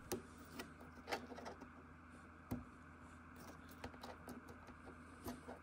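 A few faint, scattered clicks and taps of a small plastic cable connector being pushed into a 3D printer's stepper motor socket and the cable handled, over quiet room tone.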